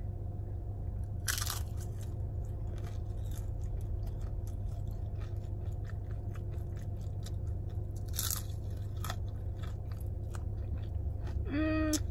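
Biting into and chewing a deep-fried crab rangoon dipped in sweet and sour sauce, close to the microphone: crisp crunches of the fried wonton wrapper with wetter chewing. Two louder crunching bites come about a second in and again about eight seconds in.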